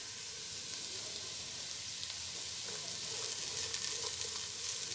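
Chopped green beans, carrot, capsicum and garlic sizzling in hot sunflower oil in a non-stick pan on a high flame. In the second half a spatula stirs them with faint scraping ticks.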